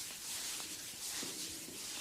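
Hands rubbing a person's hair and scalp during a head massage: quick rhythmic swishing strokes, about four a second.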